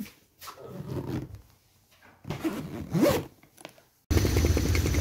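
Zipper on a soft-sided fabric suitcase being pulled in two strokes, the second louder and rising in pitch. Shortly before the end it cuts abruptly to a steady low rumble.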